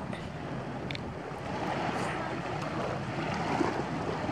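Shallow sea water lapping and swishing, with a steady rush of surf and wind and a couple of faint ticks.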